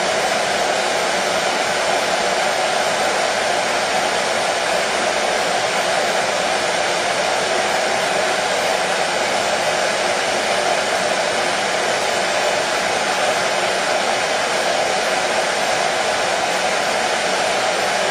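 Hair dryer running steadily, an even blowing noise with no change in pitch or level.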